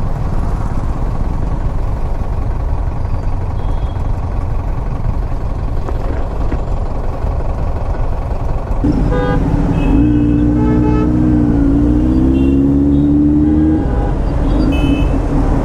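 Motorcycle riding in traffic: a steady rumble of engine and road noise. About nine seconds in it turns louder, into a pitched engine drone that dips and rises, with short horn toots from the traffic.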